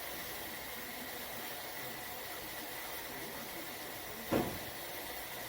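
A steady hiss, with one short knock about four seconds in.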